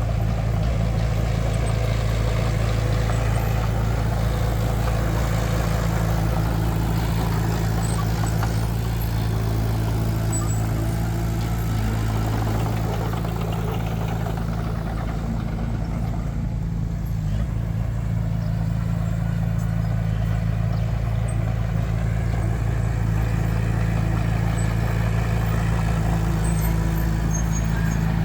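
Heavy diesel engine of earthmoving machinery running at a steady speed, its low drone unchanging, with a slight dip in mechanical noise about two-thirds of the way through.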